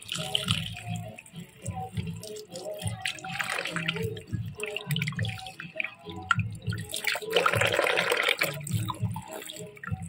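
Tap water running and splashing into a basin as whole fish are rinsed and turned over by hand, with a louder burst of splashing about seven and a half seconds in. Music plays underneath.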